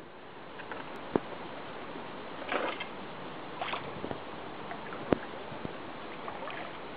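Steady hiss of river water lapping and flowing, with two sharp clicks and two short scratchy bursts in between.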